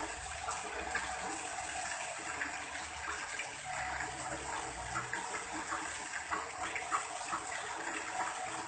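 Water from a garden rockery waterfall falling and splashing steadily, fed by an electric pump.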